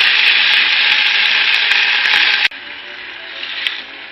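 Hot mustard oil with spices sizzling loudly in a pan, soaked red lentils just added. About two and a half seconds in, the sizzle drops suddenly to a quieter level.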